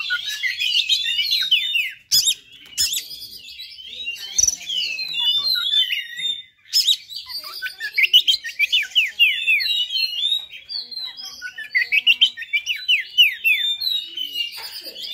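Oriental magpie-robin singing a loud, near-continuous, varied song of whistles and rapid runs of quick falling notes, with a few sharp clicks among it.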